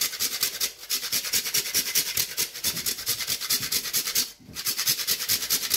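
A whole nutmeg being grated on a fine hand grater: quick, even rasping strokes back and forth, with a brief pause about four seconds in.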